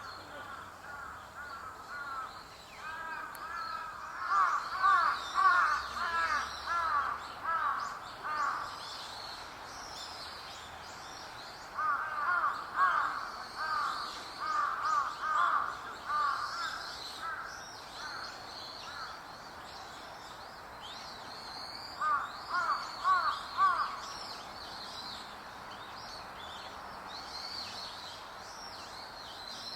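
Wild birds calling. Three bouts of quickly repeated calls, about a second in, in the middle and near the end, stand out over fainter high chirps from smaller birds.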